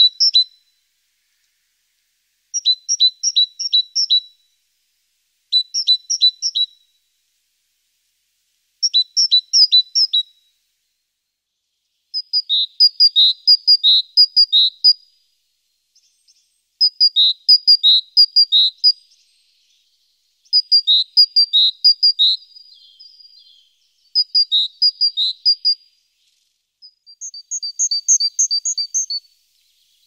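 Songbird singing: short phrases of four or five quick, high chirping notes, repeated every two to three seconds; from about twelve seconds in the phrases grow longer and more varied.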